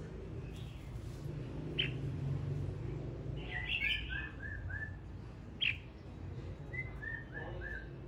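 Male red-whiskered bulbul singing: sharp short notes twice, and two runs of about five quick repeated chirps, one around the middle and one near the end. A low hum runs underneath.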